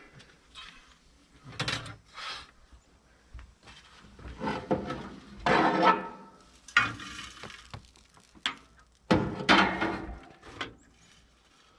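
Food being lifted off cast iron grill pans: a series of scrapes and clanks of a utensil against the cast iron, with faint sizzling between them.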